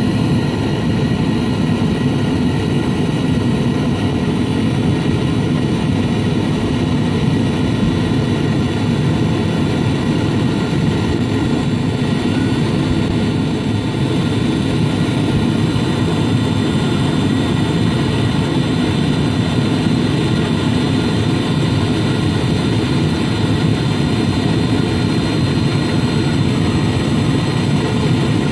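Webasto Thermo Top V diesel heater running with its flame lit: a steady combustion-fan and burner noise that holds even throughout.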